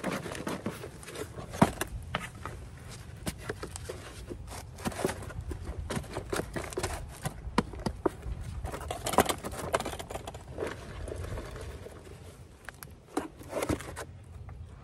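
Potting soil poured from a black plastic nursery pot into a planter and pressed down around a newly potted philodendron by gloved hands: irregular rustling, crumbling and patting, with a few sharper knocks, the loudest about a second and a half in.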